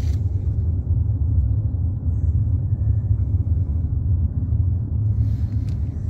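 Steady low rumble of a car driving along a road, heard from inside the car.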